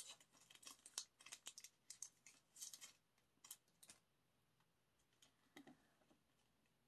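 Faint clicks, ticks and light rustles of small photocards being handled and flicked through in the hands, busiest in the first four seconds, then only a few.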